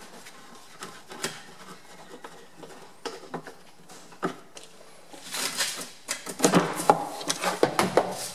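Metal end cover of a lathe being worked loose and lifted off the change-gear train: scattered light clicks at first, then a run of clattering knocks and scrapes from about five seconds in as the cover comes away.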